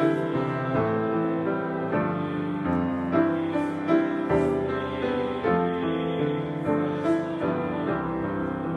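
Grand piano playing a slow, gentle piece, single notes and chords changing about every half second to second.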